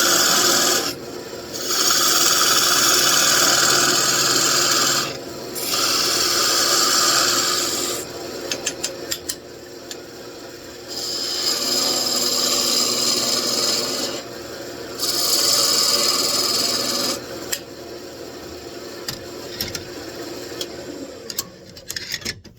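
Wood lathe running while a turning tool cuts the spinning wood in five hissing passes of a few seconds each, with quieter gaps and light ticks between them.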